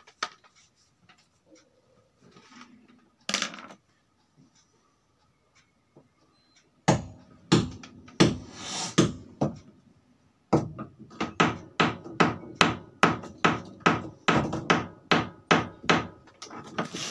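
Hammering from building work next door. A few sharp blows come about seven seconds in, then a steady run of blows at a little over two a second.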